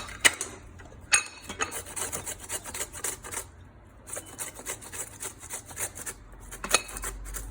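Fresh ginger root being grated on a hand grater: quick repeated scraping strokes, about three a second, with a short pause about halfway.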